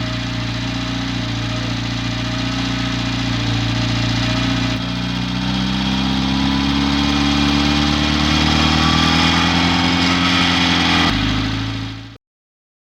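Old truck engine running steadily, then its pitch climbing as it revs up from about five seconds in. It fades out quickly about a second before the end.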